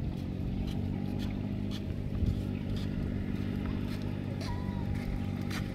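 A small engine running steadily at an even pitch, with a few faint clicks over it.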